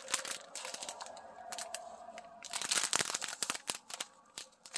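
Clear plastic packaging crinkling and crackling as a long sleeve of diamond-painting drill pouches is handled, in quick irregular crackles that come thickest a little after the middle.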